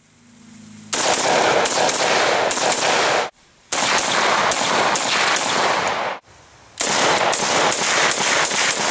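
Rapid fire from AK-74-pattern rifles in 5.45x39, several shots a second, in three long strings broken by short pauses.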